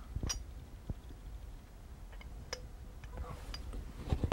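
A few faint, scattered clicks and light knocks of glassware being handled and set down, spaced roughly a second apart, with a couple of sharper clicks near the end.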